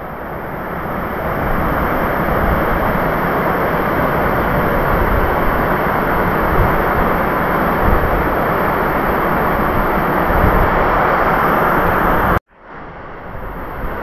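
Waterfall rushing steadily as its two strands of water fall onto rocks and into a plunge pool. The sound cuts out for a moment near the end and fades back in.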